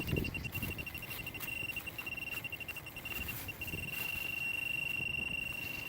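Minelab X-Terra 305 metal detector giving its target tone: a high beep pulsing rapidly, then from about halfway through a single held, unbroken tone. The fast, hard beeping means the coil is right on top of a buried metal target.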